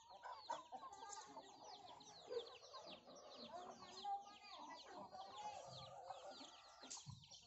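Flock of hens and chicks feeding: many chicks peeping in a constant run of high, falling notes, with hens clucking beneath. Faint overall.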